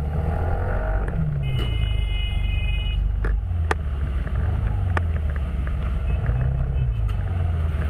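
Motor vehicle running in city traffic, a steady low engine rumble with road noise. A steady high tone sounds for about a second and a half near the start, and a few sharp clicks follow.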